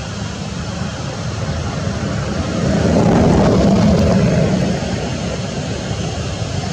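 Steady engine drone of a passing vehicle, swelling louder a few seconds in and then easing off.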